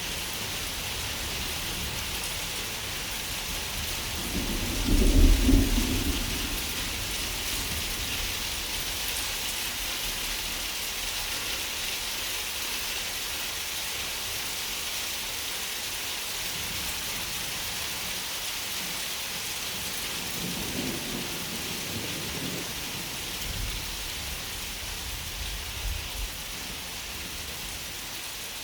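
Steady rain hissing, with a loud roll of thunder about five seconds in and softer rumbles of thunder later on.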